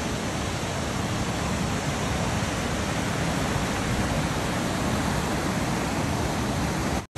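Fast mountain river rushing over boulders in white water, a steady even noise that cuts out for an instant near the end.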